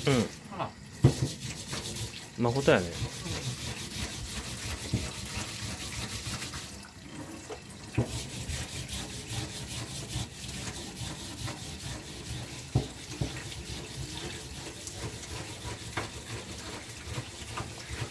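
Tap water running steadily into a stainless-steel sink while a burdock root is rubbed and scrubbed clean under the stream, with a few light knocks against the sink.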